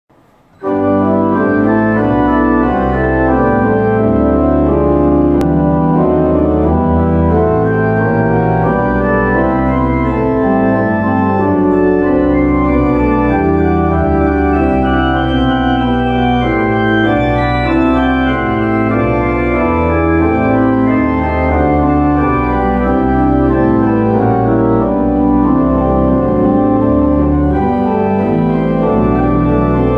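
The pipe organ of St. Florian's Basilica in Kraków playing a full-voiced improvisation, with sustained chords over a deep pedal bass. It comes in about half a second in and plays on without a break.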